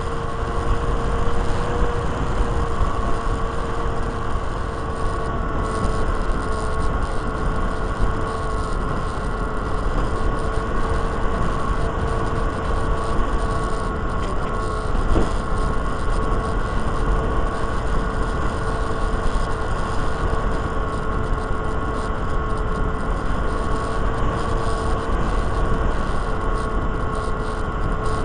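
Electric motor and propeller of a Micro Interceptor RC plane running steadily in flight, a steady whine with a slight waver in pitch, with wind rushing and buffeting over the onboard microphone.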